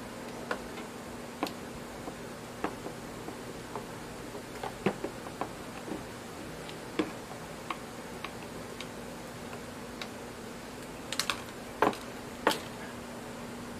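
Rubber power cord of a rotary hammer being handled and uncoiled: scattered light clicks and taps at irregular spacing, with a few louder clacks near the end, over a faint steady hum.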